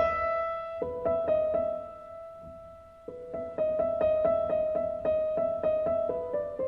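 Background piano music: a quiet, sparse passage of single sustained notes that thins out briefly, then picks up again with a run of repeated higher notes.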